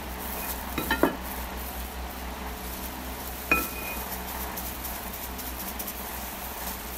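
Kitchen utensil clinking against a glass mixing bowl twice: a few light knocks about a second in, then a sharper clink with a short glassy ring about three and a half seconds in, over a steady low hum.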